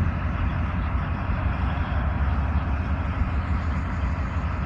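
Large mining haul truck's diesel engine running hard under heavy load, a steady low rumble, as it strains to tow a stuck haul truck out of soft ground.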